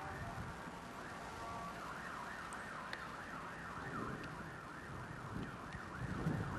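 A siren rising and falling rapidly, about two sweeps a second, starting about two seconds in. Under it is a low rumble of wind on the microphone that grows louder near the end.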